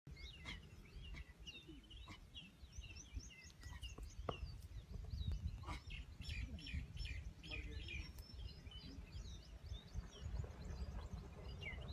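Birds chirping and calling busily in short repeated notes, over a steady low rumble.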